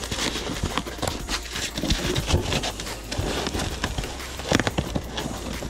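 Cardboard box and foam packing being handled: irregular knocks, taps and scrapes as foam pieces are pushed in around a bubble-wrapped item.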